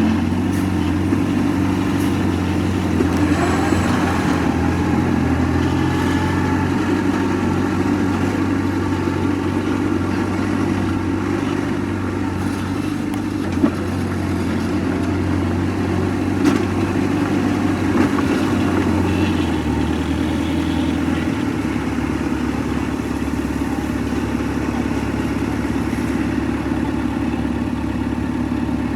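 Heavy earthmoving machine's diesel engine running steadily, its note shifting lower about twenty seconds in, with a few short knocks, the sharpest about halfway through.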